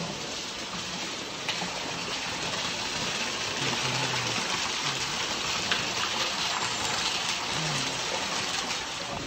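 Water falling from a small artificial waterfall onto rocks, a steady splashing rush that is a little louder in the middle.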